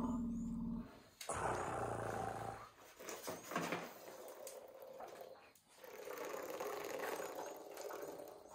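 Young African elephant calf giving two low, pulsing rumbles in the first few seconds, then a few seconds of breathy noise as it reaches for its milk bottle.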